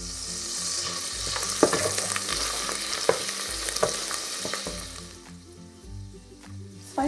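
Wild garlic butter and oil sizzling in an enamel pot as it is stirred with a wooden spoon, with a few sharp knocks of the spoon against the pot. The sizzle dies down about five seconds in.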